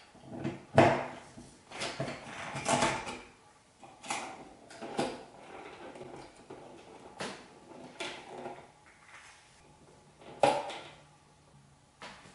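A wall light switch being taken out of its metal electrical box: a string of separate clicks, knocks and scrapes of plastic and metal as a screwdriver works the mounting screws and the switch is pulled out on its wires. The loudest knocks come about a second in and near the end.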